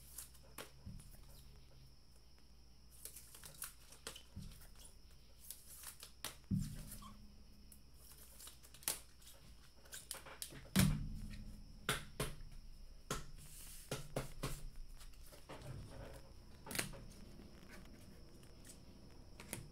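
Trading cards being handled and laid out on a table: scattered light clicks and rustling, with a few dull knocks, the loudest about eleven seconds in.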